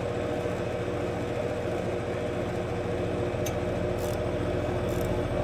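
Air-conditioning equipment running with a steady mechanical hum, with a few brief faint ticks past the middle.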